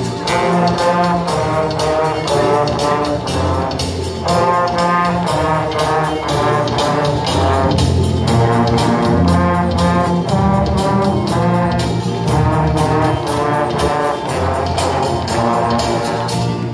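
A large student trombone ensemble playing sustained, full chords together, in phrases separated by short breaks.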